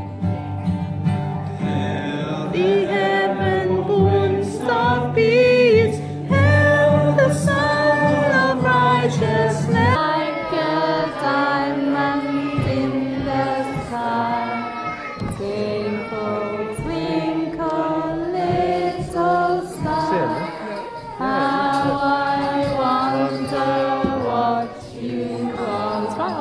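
Group of young children singing a song together with women's voices, over an instrumental accompaniment that stops about ten seconds in while the singing goes on.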